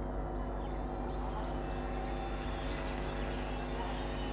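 Old Howrah–Katwa EMU electric local train drawing into the station at low speed, a steady low electrical hum that holds the same pitch.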